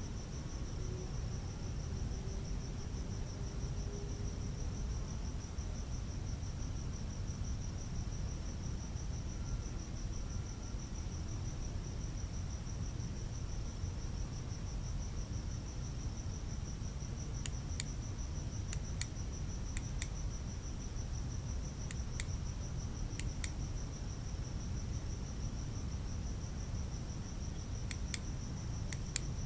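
Crickets trilling steadily in a high, rapidly pulsing tone over a low steady rumble. From about halfway through, several sharp clicks come in, mostly in pairs.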